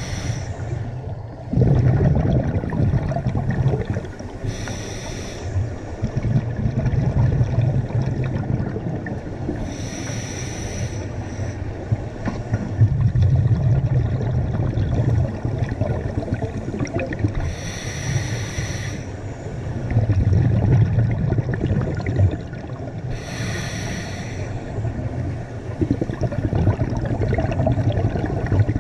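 Scuba diver breathing through a regulator underwater. A short hiss on each inhale comes about every five to six seconds, five times, and the low bubbling rumble of exhaled bubbles fills the gaps between them.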